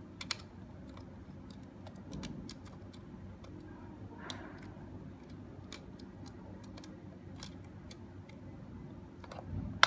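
Small scattered clicks and taps of fingers working a TF (microSD) card into the card slot on an alarm gateway's circuit board, with a sharper click near the end, over a faint steady hum.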